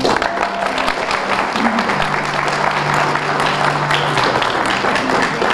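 Audience applauding steadily, with soft background music holding long low notes underneath.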